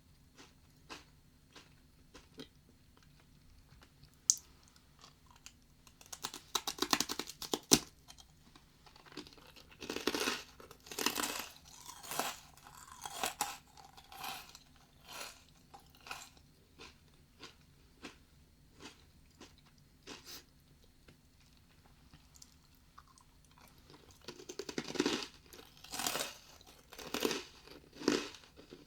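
Senbei rice crackers being crunched and chewed close to a binaural microphone, in irregular spells with pauses between. A denser, sharper crackling burst comes about seven seconds in.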